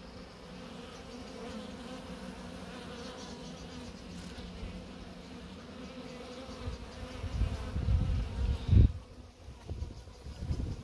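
Honeybees buzzing as they fly around small mating hives, a steady hum. From about seven seconds in, a low rumble comes and goes over it, loudest just before nine seconds.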